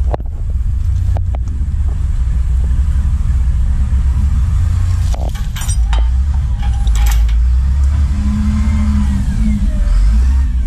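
Truck engine running low and steady, with several sharp clicks and knocks scattered through.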